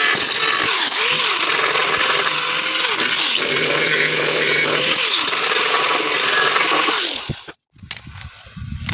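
Handheld electric power tool working on car body sheet metal, its motor pitch dipping and recovering repeatedly as it bears on the work. It stops abruptly about seven seconds in.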